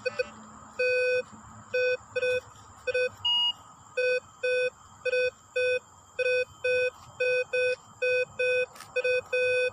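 Minelab Vanquish 340 metal detector giving repeated low beeps, about two a second and mostly in pairs, as the coil is swept back and forth over a buried metal target. There is a single higher beep about three and a half seconds in.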